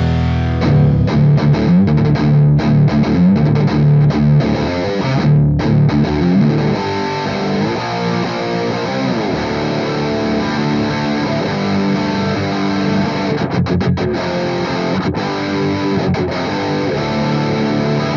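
Distorted electric guitar playing a heavy rock riff, with low notes ringing and shifting picked figures above them.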